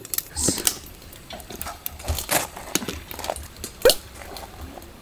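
A fire crackling in a fire pit, with irregular sharp pops and snaps.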